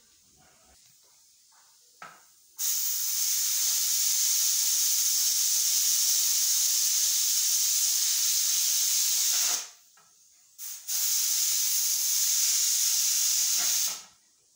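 Aluminium pressure cooker venting steam in a loud, steady hiss as its weighted pressure regulator is lifted with a wooden spoon to let the pressure out. About seven seconds of hiss, a short puff, then about three seconds more.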